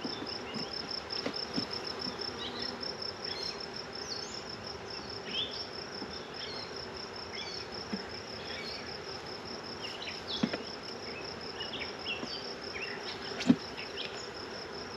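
Honeybee swarm buzzing steadily around an opened hive, the bees agitated, over a high, evenly pulsed insect chirp repeating several times a second. A few knocks come through, the loudest near the end.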